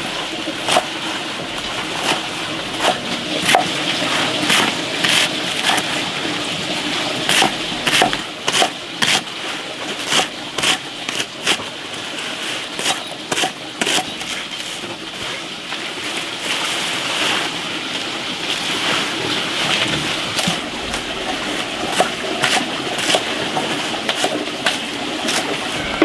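Large leafy plant stalks being handled, rustled and snapped, giving many irregular sharp snaps and crackles over a steady background hiss.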